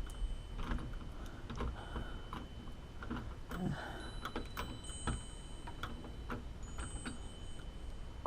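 Screwdriver tightening a doorknob's mounting screws, with scattered light metallic clicks at an uneven pace.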